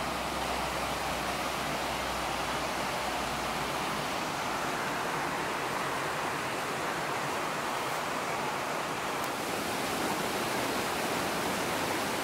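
Steady rushing of a shallow rocky creek running over small cascades.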